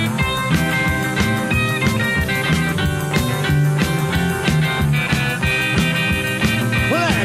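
Rockabilly band playing an instrumental break: electric guitar lines over a steady drum beat, with a bent note near the end.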